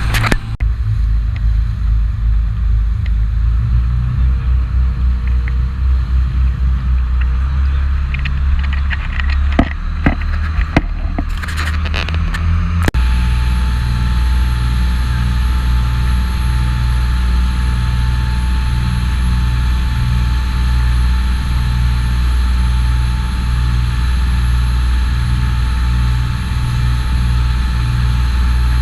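Charter fishing boat's engine running steadily, heard on board. A few sharp knocks come about ten to twelve seconds in, and a little later the sound changes abruptly to a steadier, evenly pulsing rumble with a thin constant hum.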